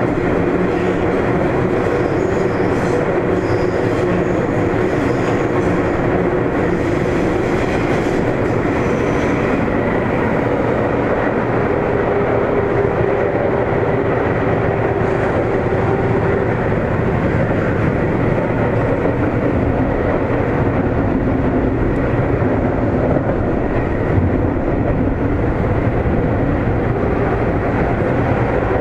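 Interior running noise of a Sendai City Subway Namboku Line 1000 series car under way between stations: a steady, loud rumble of wheels on rail, with a few faint steady tones.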